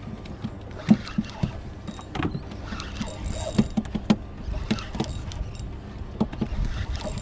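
Spinning reel being cranked while fighting a hooked jack on a hard-bent rod, with irregular clicks and knocks of the tackle over a steady low rumble.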